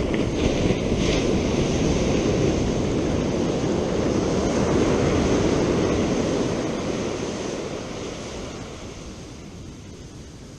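Ocean surf on a beach: the rush of a breaking wave swells and then fades away over the last few seconds, with wind noise on the microphone.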